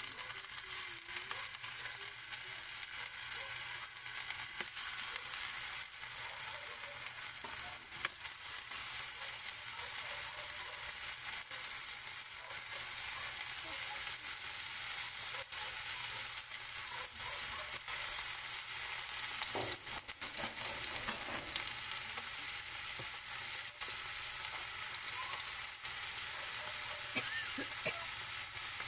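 Raw potato slices frying in hot oil in a frying pan: a steady sizzling hiss with frequent small crackles and pops as more slices are laid in.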